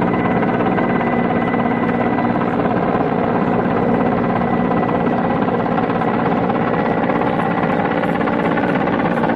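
Mil Mi-17 helicopter in flight: a steady drone from its turbine engines and main rotor.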